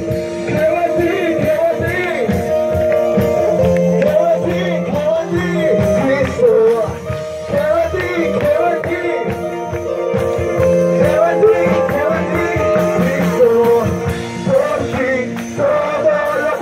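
Worship music with a band: a steady beat and guitar under held chords, with a melody line that sounds like singing.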